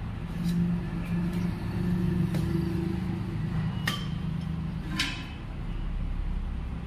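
A few sharp metallic clinks and taps as parts are handled on a tractor's diesel engine, the loudest two near the middle, over a steady low hum.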